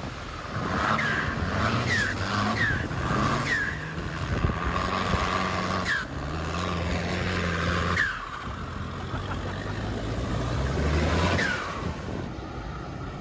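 Off-road 4x4 engines revving as the trucks drive through deep, fast river water, with the engine pitch stepping up and down and water spraying and splashing.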